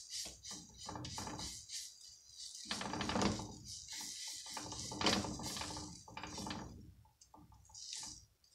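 Plastic spatula scraping and tapping on a nonstick frying pan as oat pancake batter is spread and pressed out, in irregular strokes.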